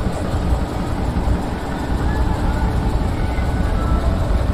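Large truck's diesel engine running with a steady, deep rumble.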